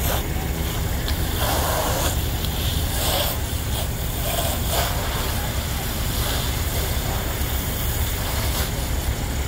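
Diesel engine of a fire apparatus running steadily at the fireground, a constant low rumble under a wide hiss, with a few faint distant voices.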